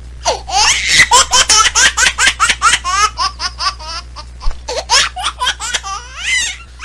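A baby laughing hard: a fast run of short, high-pitched laughs, about four a second, that thins out after about three seconds and ends in a drawn-out high squeal near the end.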